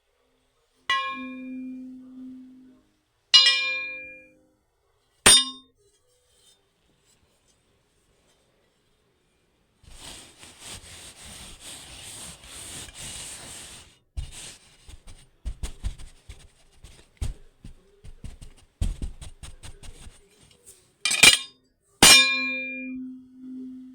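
A metal object is struck several times, each clang ringing on with a steady low tone. In the middle there is a few seconds' hiss and then a run of scattered knocks and clicks, before two more ringing clangs near the end.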